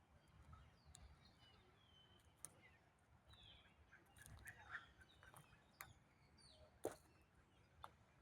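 Faint outdoor ambience of small birds chirping in short calls. It is broken by a few sharp clicks, the loudest of them about seven seconds in, with a low rumble underneath.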